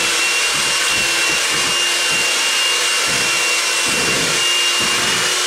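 Electric food mixer running steadily on its lowest speed, mixing cake batter: a constant motor whir with a high whine.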